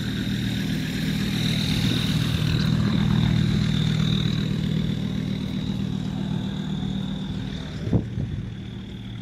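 Nuffield 10/60 tractor's BMC diesel engine idling steadily, with a thin high whine above it. A single short knock sounds near the end.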